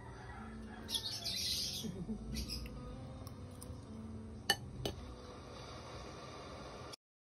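Metal fork scraping and clinking against a ceramic bowl, with two sharp clinks close together a little past halfway, over a low background hum. The sound cuts off suddenly near the end.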